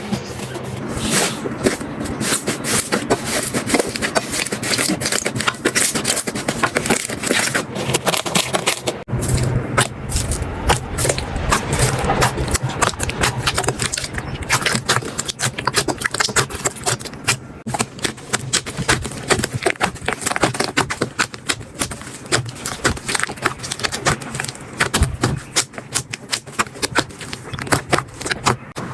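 Slime being squeezed, poked and stretched by hand, giving a dense, irregular run of small crackling clicks and pops.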